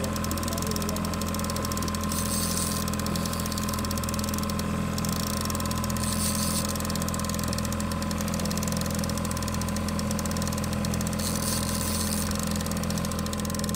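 Outboard boat motor idling steadily, a low even hum with a thin steady whine over it.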